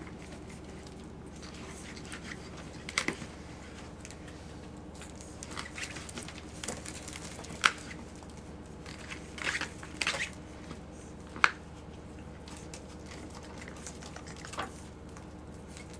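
Puggle puppies scuffling and tugging a plush toy on a wood floor: scattered small clicks, scratches and rustles, the sharpest about midway and a few seconds before the end, over a steady low hum.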